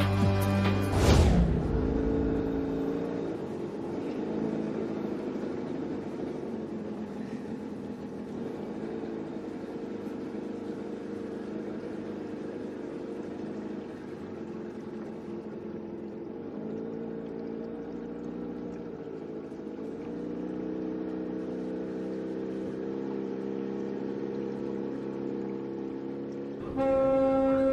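A loud thump about a second in, then steady traffic with horns sounding at shifting pitches. Near the end a boat's horn starts with one steady, low blast.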